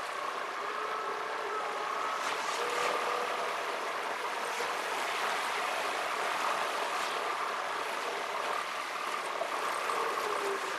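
Car driving down a road, heard from inside the cabin: a steady hiss of engine and road noise with a faint wavering hum, played back at four times speed so it sits high and rushing.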